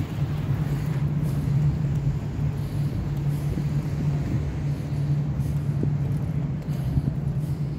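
Steady low engine hum over city street noise.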